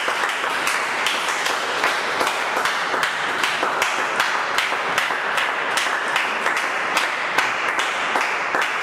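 A congregation clapping: a dense, steady patter of many hands with sharper individual claps standing out throughout.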